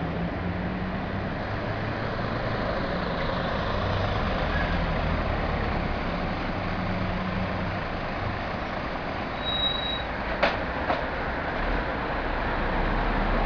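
Steady motor-vehicle engine and road noise, with a low engine hum under a wide hiss of tyres and traffic. Two sharp clicks come about half a second apart, a little past halfway.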